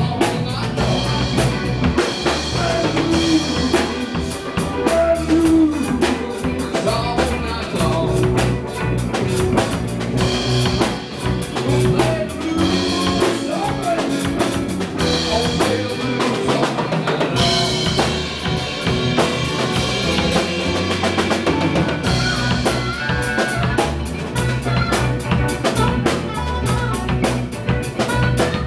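Live blues band playing a funky groove: a Tama drum kit drives it with bass drum and snare rimshots, under electric guitar.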